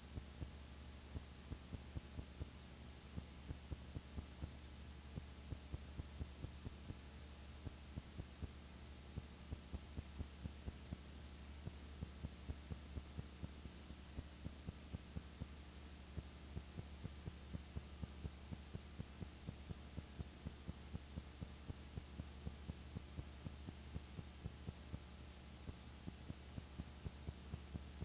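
Steady low hum with faint clicks two or three times a second; no speech or music.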